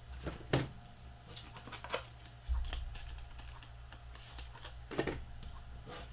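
Scattered light clicks and taps from trading cards being handled and set down on a table, a few sharper ones about half a second, two seconds and five seconds in, over a steady low hum.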